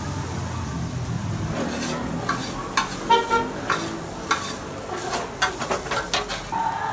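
Chow mein noodles being stir-fried in a pan on a gas stove: a steady sizzle, with a quick run of sharp clanks and scrapes of the cooking utensil against the pan starting about two seconds in.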